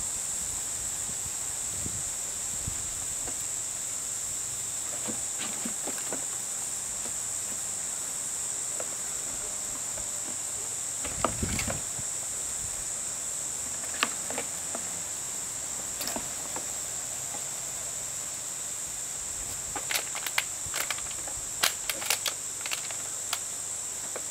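Steady high-pitched insect drone, with the sharp knocks and clatter of empty plastic bottles being pushed around in a plastic clamshell pool by nosing puppies, clustering in a run of clatters near the end.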